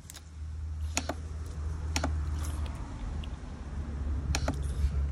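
Sharp plastic clicks, three or four about a second apart, from a hand pressing the top of a dog water fountain, over a steady low rumble.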